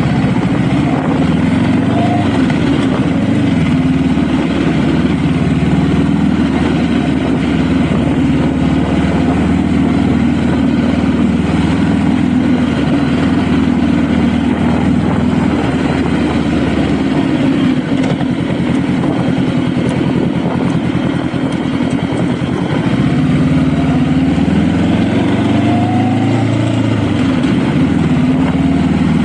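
Honda Rebel motorcycle engine running steadily under way, with wind rushing over the microphone. Past the middle it eases off, then its pitch rises as it accelerates again near the end.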